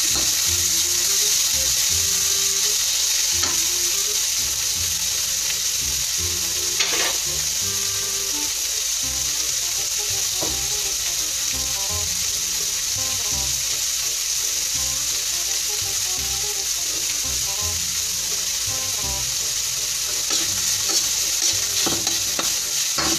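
Sliced chicken and chicken liver frying in oil in a wok: a steady sizzle, with a metal spatula stirring and scraping against the pan. A sharper scrape comes about seven seconds in, and several more near the end.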